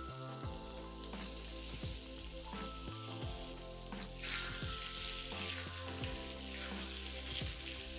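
Chicken masala sizzling as it fries in a nonstick kadai while a silicone spatula stirs it through. The sizzle grows louder about four seconds in.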